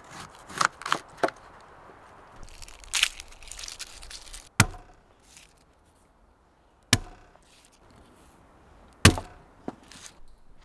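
A kitchen knife cutting vegetables on a wooden tabletop: a quick run of chops in the first second or so and again about three seconds in, then single sharp knocks on the wood about two seconds apart.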